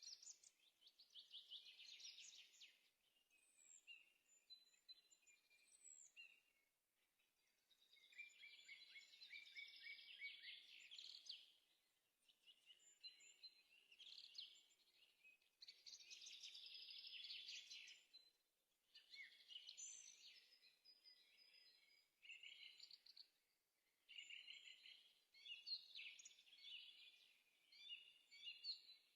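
Faint songbird song: a bird singing long, rapid trilling phrases of a few seconds each, high-pitched, with short pauses between them.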